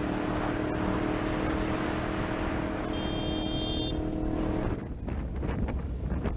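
Motorcycle engine running steadily under way, with wind noise over the helmet-mounted microphone. About four and a half seconds in the sound cuts to a heavier low rumble with gusty wind buffeting.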